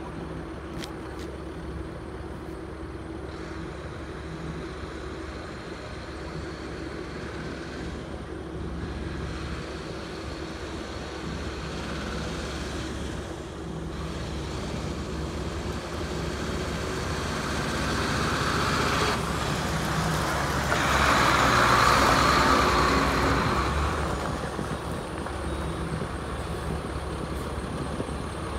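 A 1995 Ford LN8000 dump truck's engine running as the truck drives along the gravel lot. The sound grows louder, is loudest about 21 seconds in, then eases off.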